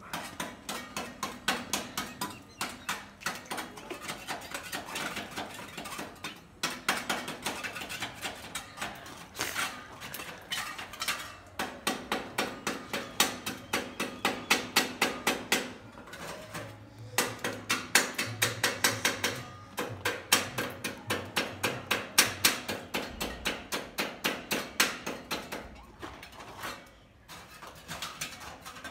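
Hand scraper working over a metal window frame in quick short strokes, about four a second, stripping off old paint. The strokes come in runs with brief pauses between them.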